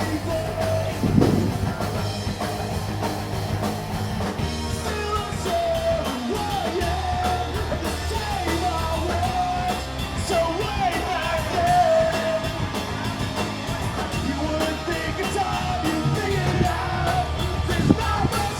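Rock music with a singing voice: a sung melody over a steady bass and drums.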